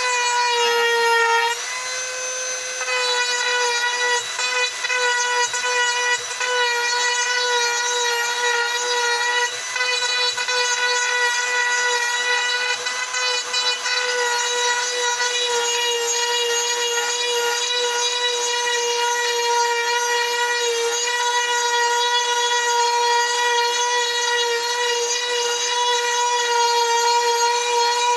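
Small high-speed power carving tool running with a steady high whine while cutting into wood; its pitch sags briefly about a second in as it bites.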